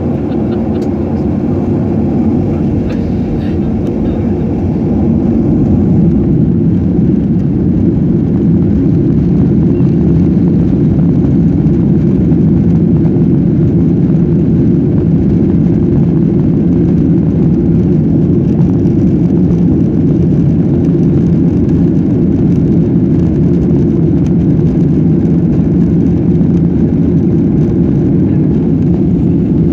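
Boeing 737-800's CFM56-7B jet engines heard from inside the passenger cabin as a steady low rumble while the airliner taxis. It grows louder about five seconds in and then holds level.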